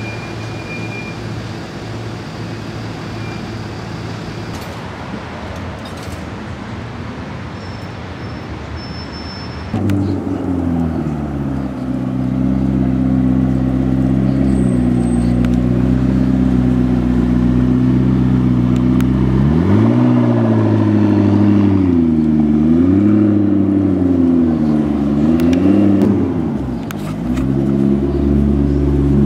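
Street noise at first; about ten seconds in, a McLaren 650S's twin-turbo V8 comes in suddenly and runs at low revs as the car drives slowly. The revs then rise and fall several times, dip briefly and settle again near the end.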